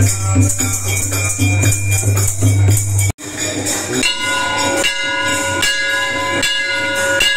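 A dholak hand drum played in a quick, steady rhythm with jingling percussion. About three seconds in it cuts off abruptly and a bell is struck about once every 0.8 s, each stroke ringing on.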